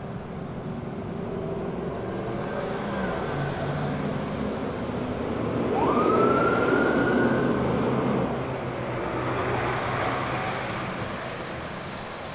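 Road traffic passing, tyres and engines. About six seconds in, a passing state trooper patrol car with lights on sounds a short siren wail that rises in pitch over about two seconds and then stops.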